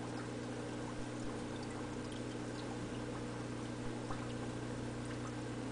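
Aquarium filter running: a steady trickle of water with a low electrical hum, plus a few faint ticks.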